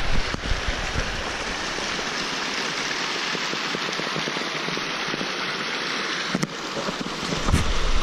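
Small snowmelt creek rushing and splashing over rocks in a steady wash of water noise, with a couple of brief bumps near the end.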